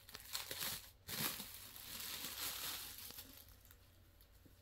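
Clear plastic packing bag crinkling as a folded dupatta is pulled out and opened up, with the cloth rustling. The crinkling starts sharply about a second in and dies down after about three seconds.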